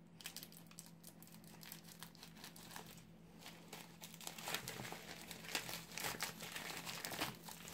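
Plastic poly mailer bag crinkling as it is handled and cut open with scissors: faint at first, then louder, irregular crinkles and snips from about four and a half seconds in.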